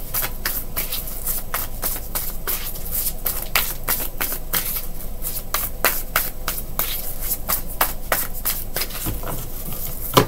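A deck of tarot cards being shuffled in the hands: a steady run of soft, irregular card slaps and riffles several times a second, with one sharp tap near the end.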